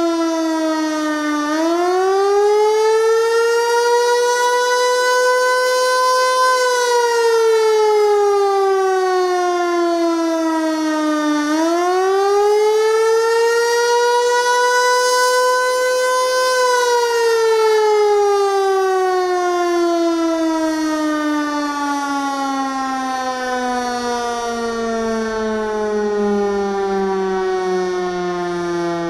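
Federal Signal Eclipse 8 electronic outdoor warning siren sounding a wail: the tone climbs for about five seconds, then falls for about five, twice over. The last fall runs long and slides down to a lower pitch than before.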